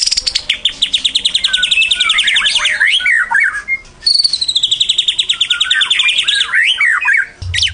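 White-rumped shama (murai batu) singing its sparring song: two phrases, each opening with a fast, even run of high repeated notes and ending in varied swooping whistles, with a brief pause about four seconds in.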